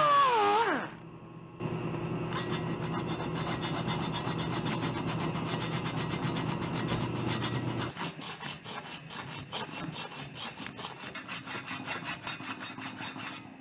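After a wavering musical tone that ends within the first second, a hand saw and then a file rasp against a welded aluminum cylinder-head cooling fin, rounding and smoothing it. The rasping is steady at first and breaks into separate short strokes about eight seconds in.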